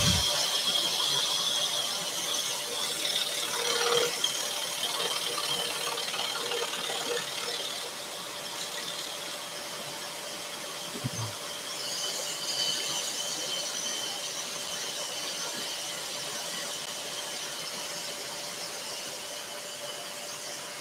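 Scroll saw running and cutting a thin tulip wood panel, the blade sawing steadily with a constant thin high-pitched tone over the motor's hum.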